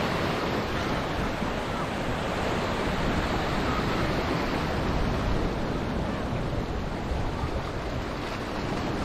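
Small sea waves washing against shoreline rocks, with wind on the microphone, a steady even rush.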